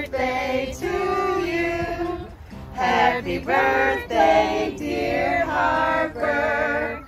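Singing: several voices holding and gliding between notes, choir-like.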